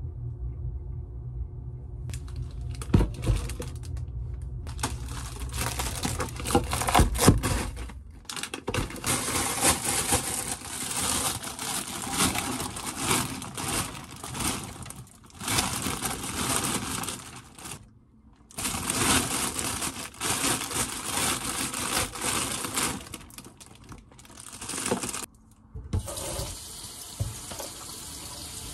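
Kitchen tap water running onto soybean sprouts in a stainless steel mesh colander as they are rinsed, starting about two seconds in and stopping briefly a few times. A few knocks early on as the colander is handled.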